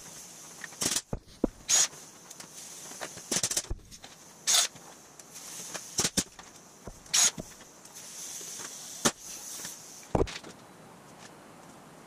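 Homemade rivet gun hammering small aluminum rivets into an aluminum hood panel against a backing bar, in about seven short bursts a second or two apart. One heavier, lower thump near the end.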